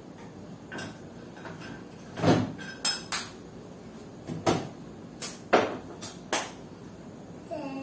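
A series of about eight sharp knocks and clacks, spaced irregularly, as hard containers and lids are handled and set down; a couple ring briefly like glass or hard plastic. Background music comes in right at the end.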